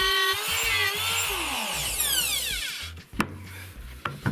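A plunge router cuts a circle in plywood on a circle-cutting jig, its whine wavering slightly under the load. About a second in it is switched off and spins down in a long falling whine. A few sharp knocks follow near the end as it is lifted and moved.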